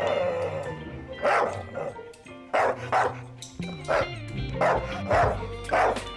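A dog barking in a series of short, sharp barks, roughly one or two a second, over background music.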